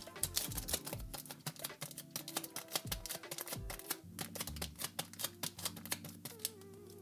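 Rapid, irregular clicking and light crackling of fingers and a clear plastic piece handling a silicone nail-art stamper as it is buffed clean, over soft background music.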